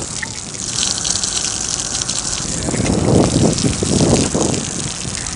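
Water gushing and splashing over solar panel glass as the panels are scrubbed with wet sponges, loudest a little past the middle.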